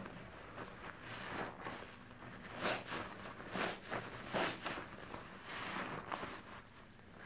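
Soapy bath sponges squeezed and worked in a basin of detergent water thick with foam: wet squelching and swishing of suds, a squeeze about every second, loudest around the middle.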